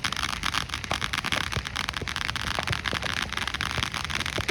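Fireworks crackling: a dense, rapid run of small sharp pops that goes on steadily and stops at the very end.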